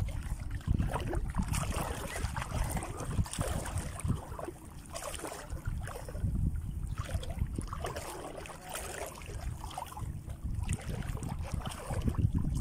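Wind buffeting the microphone in uneven low gusts, over a soft hiss of calm sea water.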